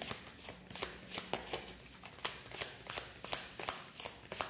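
A deck of tarot cards being shuffled by hand: a run of quick, irregular card flicks and slaps, several a second.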